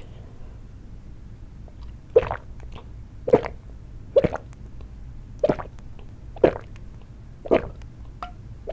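A person gulping down makgeolli in long draughts, a loud swallow about once a second from about two seconds in.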